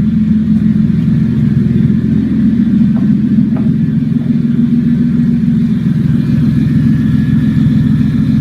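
1997 Toyota Avalon's 3.0-litre V6 running steadily at idle on open exhaust manifolds, with no exhaust pipes fitted, so the exhaust comes out raw and loud. The pitch holds level throughout, with no revving.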